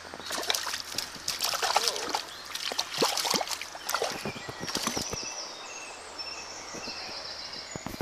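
Irregular splashing and sloshing of river water from a hooked brown trout being played, mixed with knocks and rubbing from a handheld tablet being moved about. The splashes and knocks are busiest in the first half, then ease off.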